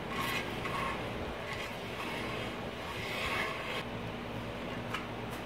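A ridge reamer's cutting blade scraping the ridge at the top of a Jeep 4.0L cast-iron cylinder bore as the tool is turned by hand with a wrench. It comes as a series of short, uneven metal-on-metal scrapes that die down shortly before the end.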